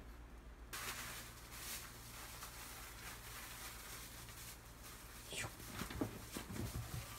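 A cat pouncing on a bed: a few soft thumps and scuffles as its paws land on the quilt and pillow, loudest about six seconds in, over faint room hiss.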